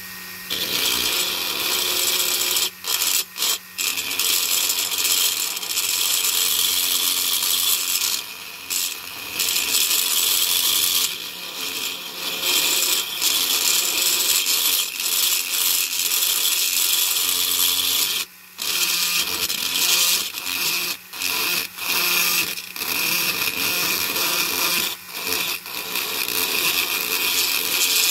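Black & Decker Wizard rotary multi-tool with a burr grinding away the spun-over head of a diecast rivet: a steady, high-pitched, noisy grinding with several brief breaks. The grinding narrows the rivet's mushroom head so the rivet can be tapped out of the base.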